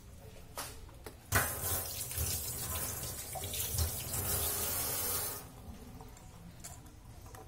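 Kitchen water tap running into a sink for about four seconds, turned on about a second in and shut off abruptly.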